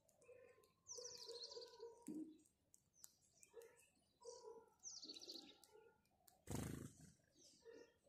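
Faint house sparrow chirping: short repeated chirps, with a quick high twittering run about a second in and again about five seconds in. A brief rush of noise about six and a half seconds in is the loudest sound.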